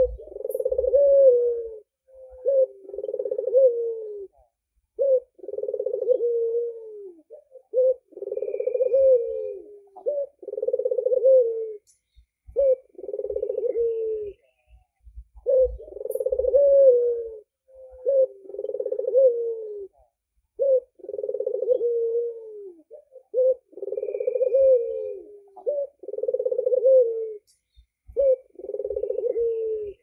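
Albino red-eyed puter (Barbary dove) cooing: a song of several low, rolling coos, each a second or two long with short gaps. The whole sequence repeats about every eight seconds.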